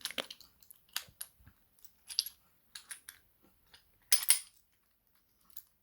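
Small metallic clicks and clinks of a padlock and its key being handled and worked on, irregular and spaced out, with a louder rattling clink about four seconds in.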